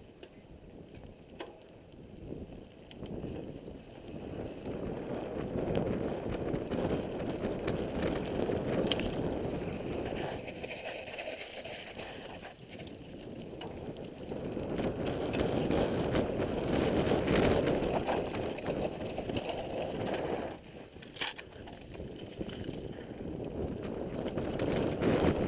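Mountain bike riding down a dirt trail: tyre rumble and wind rushing over the microphone, with the rattle of the bike, rising and falling with speed. A few sharp knocks come through, one about nine seconds in and one about twenty-one seconds in.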